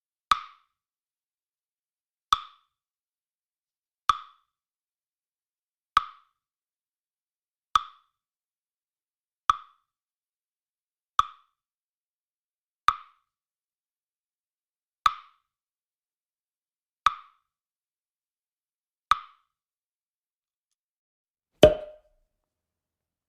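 A short, pitched plop sound effect, repeated eleven times at about two-second intervals, each dying away quickly. Near the end comes one louder, deeper plop.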